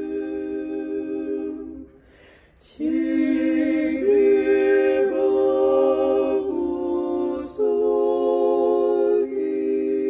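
Three women's voices singing an Orthodox liturgical hymn a cappella in close harmony, on long held chords. They break off for a breath about two seconds in, then come back in and move through a new chord roughly every second or so.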